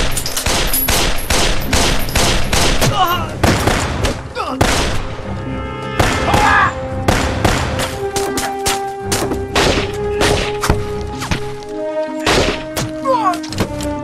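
Battle gunfire: rapid rifle and submachine-gun shots in dense volleys, thinning briefly a couple of seconds before the end, over a dramatic music score.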